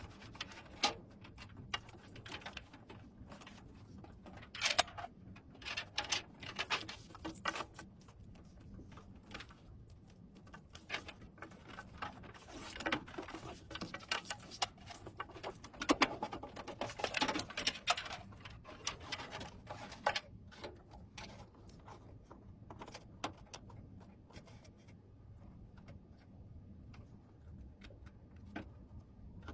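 Irregular small clicks, taps and rustles of hands handling computer parts during a PC build, busiest in the first two thirds, over a faint steady low hum.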